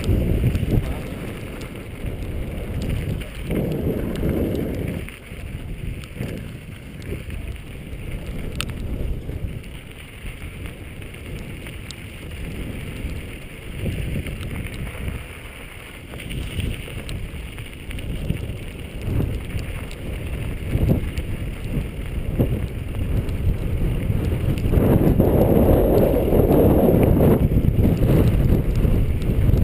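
Wind buffeting the microphone, swelling in gusts and loudest near the end, over the rattle and tyre noise of a carbon V10 downhill mountain bike riding a dirt trail.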